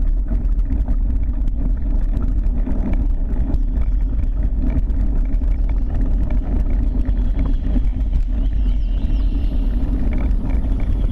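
Steady low rumble of wind buffeting a handlebar-mounted camera's microphone while riding along a paved road, with road noise under it.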